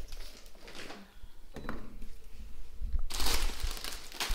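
Plastic packaging rustling and crinkling as groceries are handled on a kitchen counter, with a louder crinkle about three seconds in.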